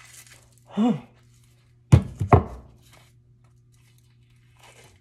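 Two dull thunks about half a second apart, the loudest sounds here, as a frozen turkey burger patty is handled while its paper is peeled off. A short grunt comes just before them, and a steady low hum runs underneath until it stops near the end.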